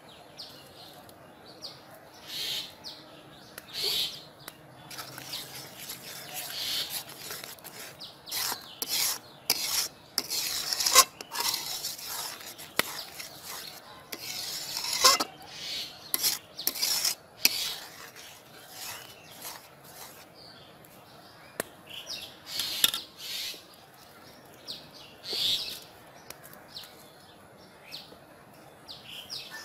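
A spatula scraping and stirring in an aluminium cooking pot, in short irregular strokes that come thickest in the middle.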